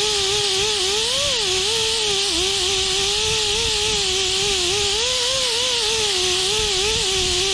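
A power tool spinning a stripping disc against painted sheet steel, taking the paint off down to bare metal. The motor whine is steady but wavers and dips in pitch as the disc is pressed on, over a harsh hiss of abrasion.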